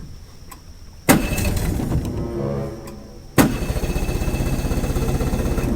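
A boat engine's electric starter cranking in two bursts, about a second in and again about three and a half seconds in, with a fast even rhythm, and the engine not catching: the battery is going flat.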